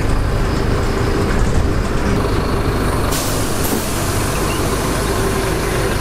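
A bus running, heard from inside the cabin as a steady low engine and road rumble. About three seconds in, a sudden hiss of compressed air starts from the bus's pneumatic system, strongest for about half a second and then lingering.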